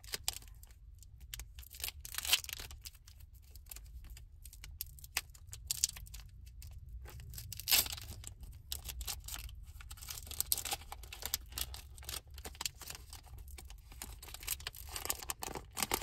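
Foil trading-card booster pack being torn open, its wrapper crinkling and the cards rustling as they are handled. The two sharpest tears come about two and eight seconds in.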